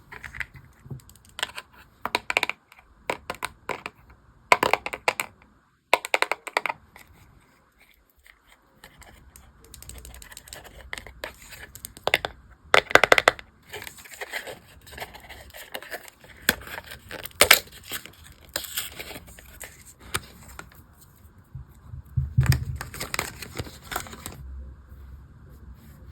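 Toy packaging being unwrapped and opened by hand: irregular crinkling, tearing and tapping in short bursts, with a pause about eight seconds in.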